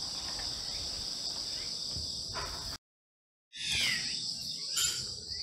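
Steady high-pitched insect chorus, such as crickets chirring, over outdoor background. The sound cuts out completely for under a second about three seconds in, then resumes with a few short falling calls.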